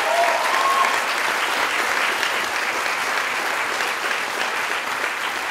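Audience applauding steadily: dense, even hand-clapping from a large crowd.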